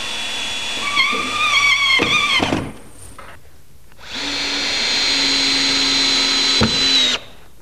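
Cordless drill-driver driving 2.5-inch drywall screws through plywood, twice. The first run's motor whine dips and wavers as the screw bites and seats, then stops about two and a half seconds in. The second runs steadily from about four seconds in, with a sharp click just before it stops near the end.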